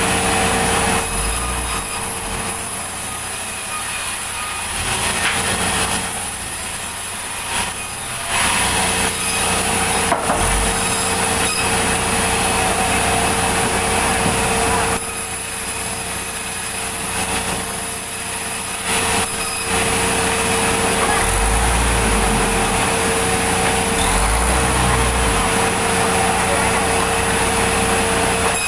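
Sawmill saw cutting through a log: a steady machine hum under a dense rasping cut, which grows louder and quieter in turns over the stretch.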